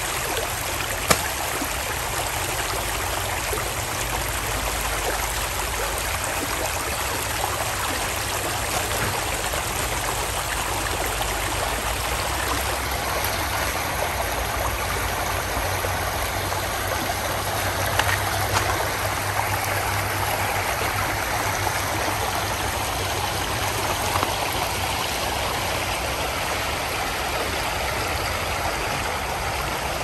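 Shallow creek water running steadily over a pebble riffle, a continuous rush, with a single sharp click about a second in.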